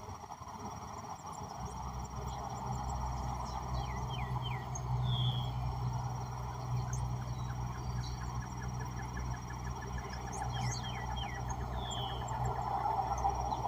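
Birds chirping and calling in short, scattered notes over a steady insect drone, with a low engine rumble that comes up about a second and a half in and runs underneath.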